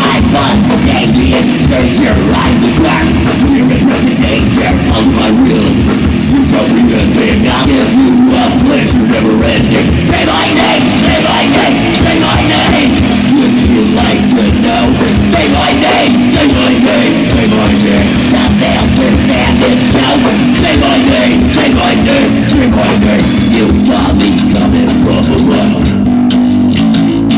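Rock band playing loudly: distorted electric guitar, bass and drum kit with crashing cymbals. About a second before the end the drums drop out and a low chord is left ringing.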